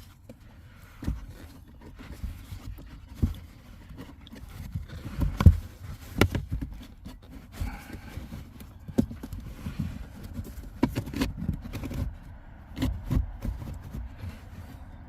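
Irregular knocks, taps and scraping of a car cabin (pollen) filter being handled and pushed up into its plastic housing, the loudest knock a little past five seconds in.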